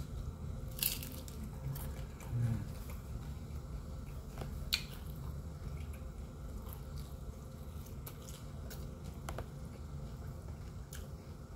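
Close-up chewing and mouth sounds of a man eating fried chicken and rice with his hands, with a few sharp wet clicks from lips and fingers over a steady low hum.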